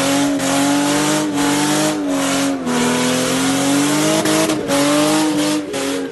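BMW E30 doing a smoky burnout: the engine is held at high revs while the rear tyres squeal. The engine note sags and recovers a few times, with brief dips in loudness.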